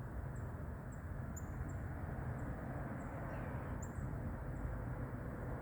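Steady low outdoor background noise with faint, short, high-pitched chirps recurring a couple of times a second.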